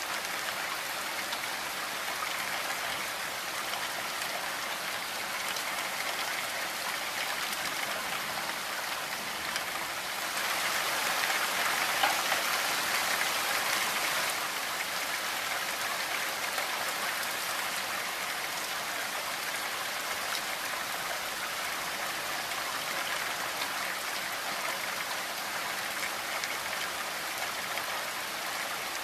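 Steady rain falling on a window and roof, a dense even hiss of drops that grows louder for a few seconds near the middle.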